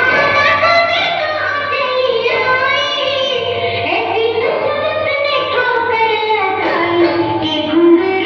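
A recorded mujra dance song playing over a loudspeaker: a woman singing a melody over instrumental backing.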